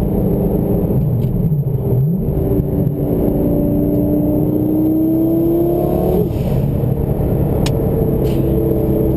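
Twin-turbo Lamborghini Gallardo V10 heard from inside the cabin as the car is driven: the engine note rises steadily under acceleration, drops suddenly about six seconds in at a gear change, then runs steadily at a lower pitch.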